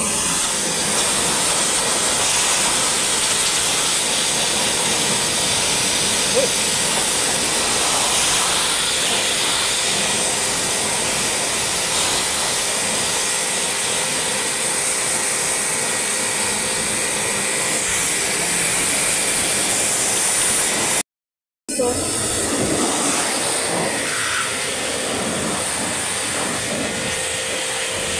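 Pressure washer spraying a jet of water onto the fins of a split-type air conditioner's outdoor condenser coil, washing off caked dirt: a loud, steady hiss of spray. It cuts out once, briefly, about three quarters of the way through.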